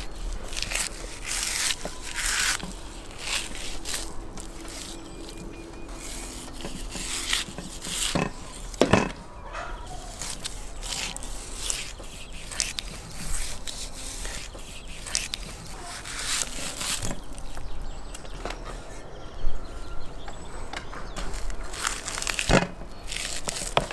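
Large kitchen knife slicing and scraping through a raw wild boar leg, cutting meat off the bone in short repeated strokes, with a few sharper knocks on the wooden cutting board, one about nine seconds in and one near the end.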